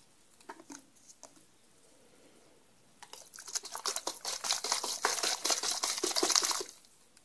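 Small plastic container with a snap-on lid, holding aquarium water and dry fertilizer, shaken hard to mix and dissolve it: a rapid sloshing rattle of liquid inside plastic that starts about three seconds in and lasts about three and a half seconds, after a few light handling clicks.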